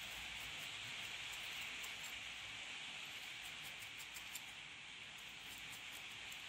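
Steady faint hiss of rain falling outside, with scattered faint light ticks and scrapes of a needle file working a small 3D-printed PLA part.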